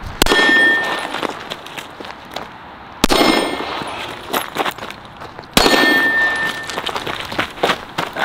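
Three shots from a 9mm Sig Sauer P320 X5 Legion pistol, two to three seconds apart. Each shot is followed by the ring of a steel target being hit.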